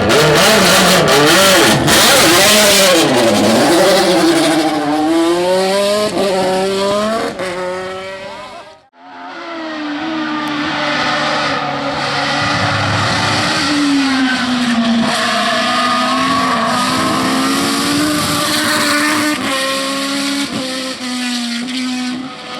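BMW 320 hillclimb race car's engine under hard acceleration, its pitch climbing and falling again and again through the gear changes. The sound cuts out suddenly a little under nine seconds in, then picks up again with the engine still on the throttle, rising and dipping.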